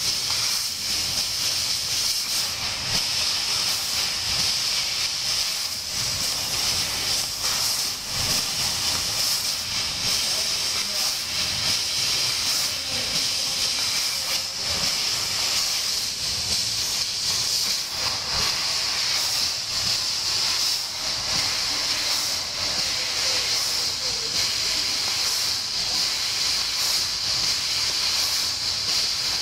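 1500 W laser cutting machine cutting 1 mm stainless steel sheet: a steady, unbroken hiss of the gas jet from the cutting head.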